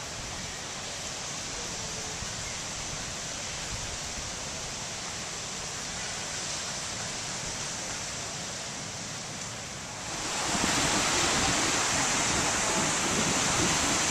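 Ocean surf breaking on a beach, heard as a steady wash with wind rumbling on the microphone; it grows clearly louder about ten seconds in.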